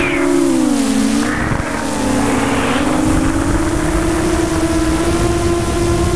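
Electric motors and propellers of a multirotor RC drone whining in flight, heard from its onboard camera with wind noise. The pitch drops and wavers about a second in, then climbs back and holds steady.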